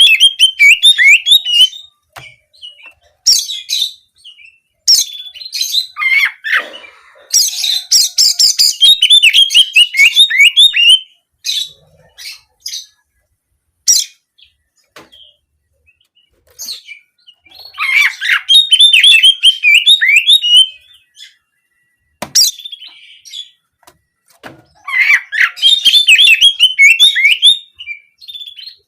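Oriental magpie-robin (kacer) singing loud bouts of rapid, canary-like chirps and trills, the 'nembak kenari' style. Several bursts of a few seconds each, the longest about six seconds, are separated by short pauses and a few sharp single notes.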